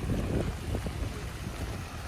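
Wind buffeting the microphone over a steady low rumble of road noise from a moving vehicle.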